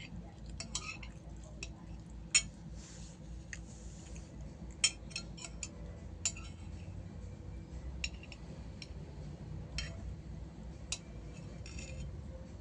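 Cutlery clinking and scraping against a plate of spicy fried rice while eating: scattered sharp clinks, a few close together around five to six seconds in, the loudest about two and a half seconds in.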